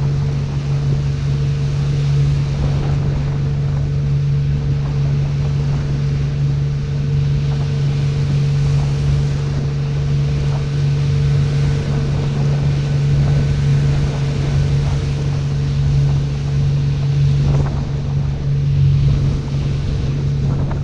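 Motorboat engine running at a steady, unchanging pitch while underway, with water rushing past the hull and wind buffeting the microphone.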